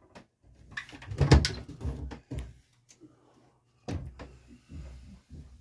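Wooden cabinet and locker doors being opened and closed, with sharp knocks and clatter, loudest about a second in and again near four seconds in, and light rustling of stowed items between them.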